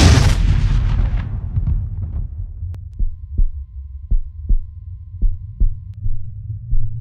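Sound-design effects: a loud whooshing hit that fades out over about two seconds, then a low rumbling drone with a heartbeat-like double thump about once a second.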